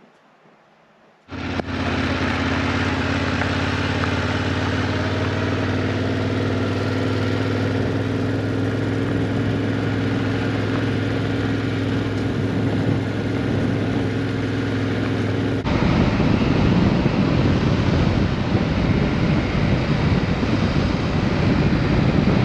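Yamaha Ténéré 700's parallel-twin engine, coming in suddenly after a quiet first second and running at steady revs with a steady hum. About two-thirds of the way through it turns louder and rougher as the bike rides along a paved road.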